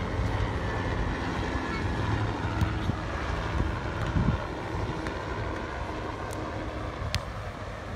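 Wind rumbling on the microphone, with a few short sharp knocks of a footvolley ball being kicked and headed during a rally.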